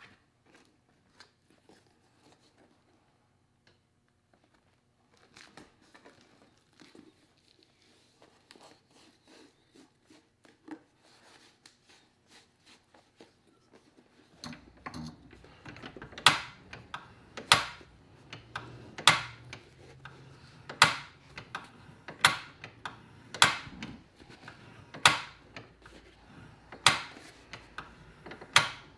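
Faint small clicks and handling noises, then a low steady hum comes in about halfway and a series of sharp, loud knocks follows, roughly one every one and a half seconds.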